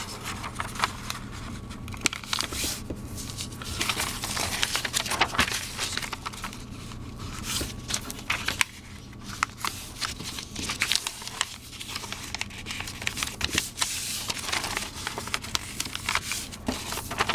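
A sheet of printer paper being folded by hand: irregular rustling and crinkling as it is bent, creased and pressed flat again and again.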